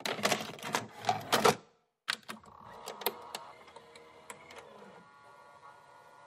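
A fast, irregular run of sharp clicks and knocks for about a second and a half. After a brief silence come fainter, scattered clicks with a faint hum, dying away toward the end.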